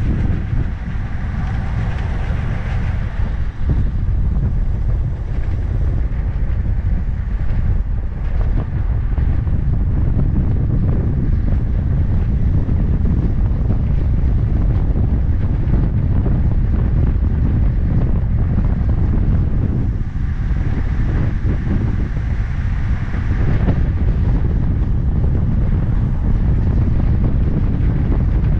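Steady, loud wind rushing and buffeting over an action camera's microphone as a handbike descends a mountain road at high speed.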